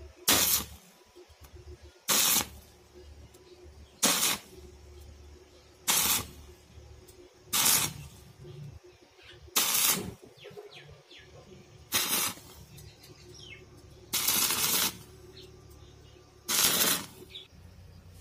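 Arc welding on thin steel: nine short bursts of welding crackle, about two seconds apart, each a tack weld. Birds chirp faintly between the bursts.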